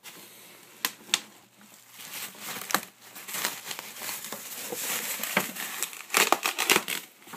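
Bubble wrap crinkling and rustling as it is handled and pulled about, with many sharp crackles and clicks that come thickest near the end.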